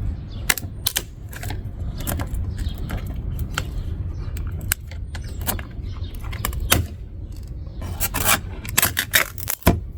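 Irregular metallic clicks, taps and light scrapes of hand tools working at the car's quarter window, over a steady low rumble.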